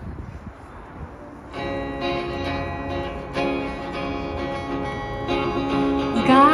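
Acoustic guitar strumming chords, starting about a second and a half in after faint background noise: the instrumental opening of a song.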